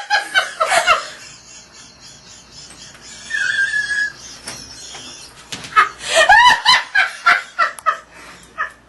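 A woman laughing uncontrollably in bursts. About three seconds in she draws a thin, high wheezing breath, and then breaks into another run of rapid laughter.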